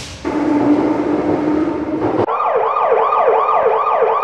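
A hiss with a steady hum, then about two seconds in an emergency-vehicle siren starts, wailing up and down quickly, about three times a second.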